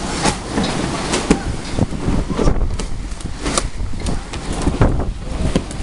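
Storm wind gusting hard across the microphone, with many irregular sharp snaps and knocks mixed in.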